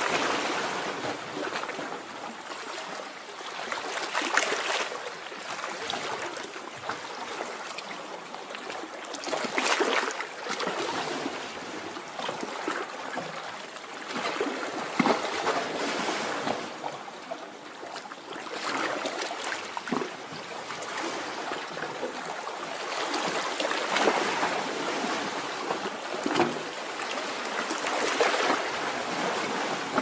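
Calm sea waves washing onto a shore: a continuous rushing wash that swells and fades every few seconds.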